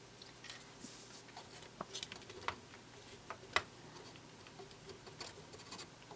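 Faint, scattered light scrapes and small clicks, the sharpest a little past halfway: a cotton swab rubbing over the erase head and audio/control head of a camcorder's tape mechanism.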